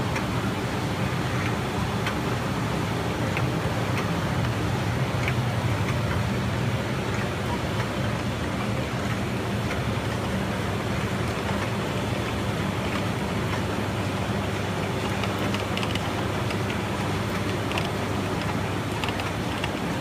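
Kopack 250 machine running steadily: a continuous mechanical hum with a low drone and faint scattered ticks.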